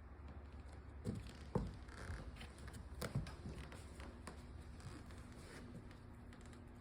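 A cat batting at a toy on the floor: a few soft knocks and taps with light rustling, the sharpest about a second and a half in.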